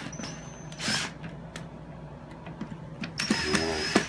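DeWalt cordless drill driving the chair base screws in short runs of its motor: a brief whine at the start, a short burst about a second in, and a longer steady run from about three seconds.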